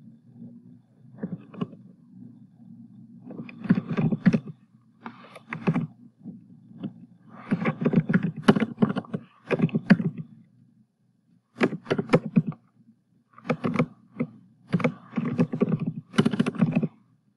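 Computer keyboard typing in short runs of rapid key clicks, with pauses between them, over a low steady hum.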